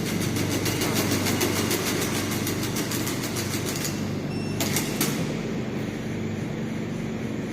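Robot dog running: a steady mechanical hum with rapid, even ticking, about eight ticks a second, that stops about four seconds in, followed by two sharp clicks.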